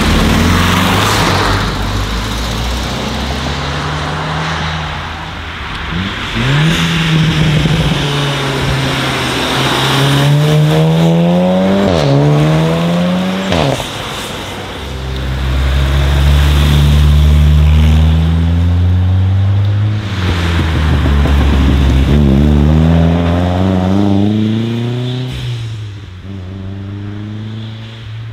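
Several cars passing one after another, engines accelerating hard, with the revs climbing and then dropping sharply at gear changes, and a deep steady engine drone in between.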